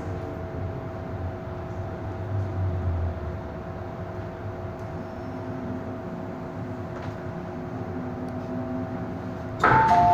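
Hong Kong MTR M-Train running in to the platform and standing, a steady rumble with a faint steady hum under it. Near the end a sudden loud rush as the doors open, with the two-tone door chime alternating between a higher and a lower beep.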